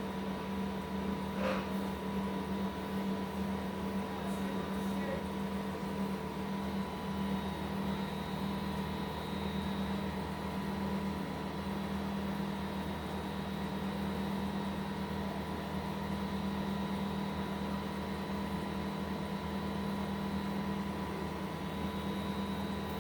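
Countertop steam oven running while it preheats: a steady fan hum with a constant low drone and a fainter high tone, and one small click about a second and a half in.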